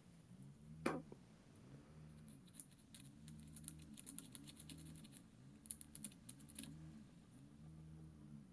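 Faint, irregular clicks and light scratching from small hand tools working at a bench, one sharper click about a second in and a cluster of ticks through the middle. A low background hum pulses evenly underneath.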